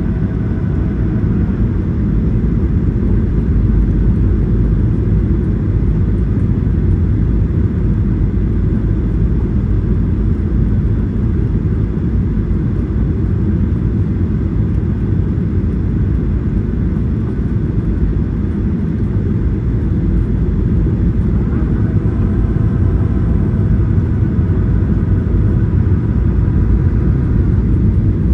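Airliner cabin noise: a steady low rumble of jet engines and airflow. A faint whine of several tones fades out in the first second and comes back for a few seconds about 22 seconds in.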